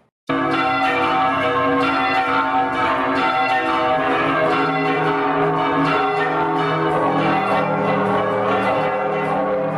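Church bells ringing, many bells struck in quick succession so their tones overlap into a continuous peal. It starts abruptly about a third of a second in.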